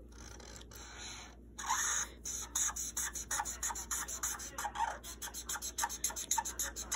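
Felt-tip marker scribbling back and forth on paper in quick, repeated scratchy strokes as an area is filled in with colour.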